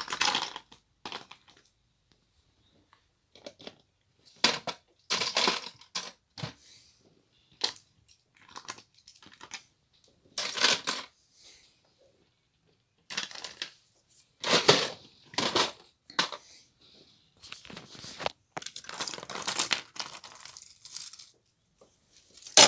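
Hands rummaging through and sorting small plastic items, rustling and crinkling in irregular bursts about a second long, with a sharp click near the end.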